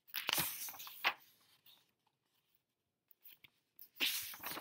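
Paper pages of a picture book being turned: two rustles, one in about the first second and another near the end.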